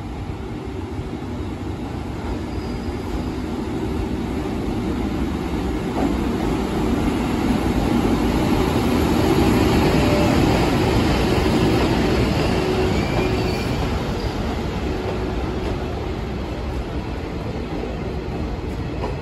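EF81 electric locomotive hauling two KiHa 110 diesel railcars, their engines shut down, rolling slowly in and braking to a stop. The rumble of wheels on rail grows louder towards the middle as the cars pass close, then eases off, with thin squealing tones over it.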